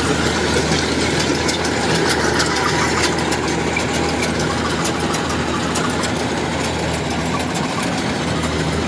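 Rice combine harvester's diesel engine running steadily while the machine cuts standing rice, with a fast, light clatter from its working parts over the engine's hum.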